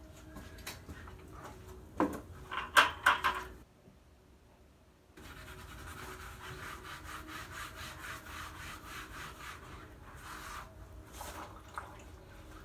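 A short clatter of knocks about two seconds in, then steady scraping and rubbing as grout is worked by hand across the tiles of a mosaic.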